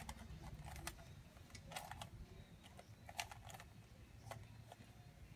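Rubik's cube being turned by hand: faint plastic clicks and clacks in short, irregular clusters.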